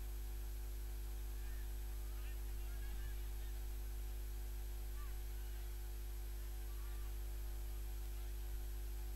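Steady low electrical mains hum with a stack of steady overtones, unchanging throughout. A few faint, short, distant calls sound over it now and then.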